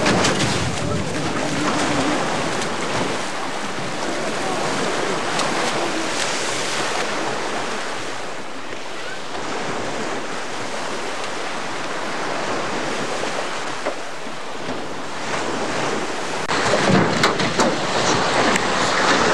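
Small waves breaking and washing up a pebble beach, with wind on the microphone. About three seconds before the end it turns into a louder, crackling rush of noise.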